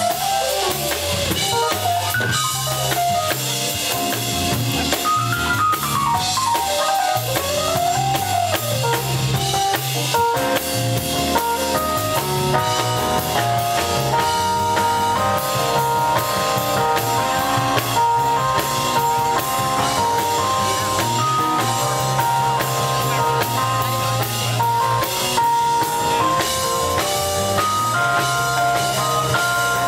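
Live jazz band playing an instrumental passage. A drum kit keeps a busy beat under electric bass and keyboards, with a melody line that bends up and down in pitch in the first ten seconds, then gives way to held chords.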